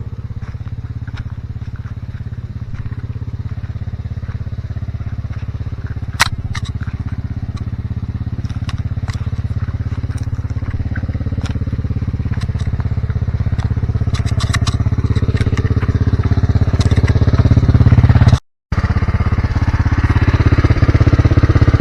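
A small engine running steadily, growing louder toward the end, with scattered sharp clicks and snaps over it.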